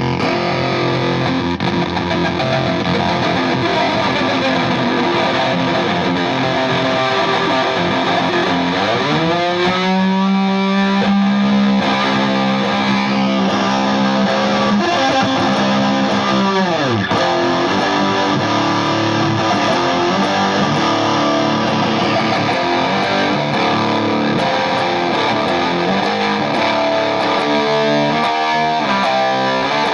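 Electric guitar played through a Volition Amps Vintage Fuzz pedal, giving a fuzzy, distorted tone. About nine seconds in a note is bent upward and held for several seconds before dropping away; quicker picked notes follow near the end.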